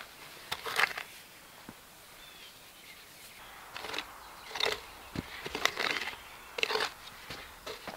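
Short-handled shovel digging into loose, dry soil: the blade scrapes in and dirt is scooped and tossed. There is one stroke a little under a second in, then a run of strokes about once a second through the second half.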